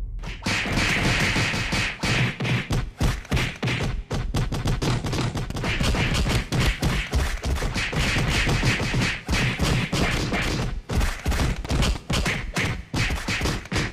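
A rapid, near-continuous barrage of thuds and whacks, several hits a second: dubbed punch-and-kick sound effects for a staged beating.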